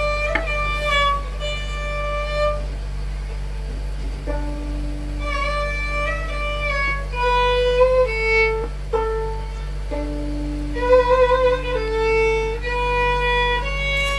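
A violin playing a slow melody of held notes, over a steady low hum.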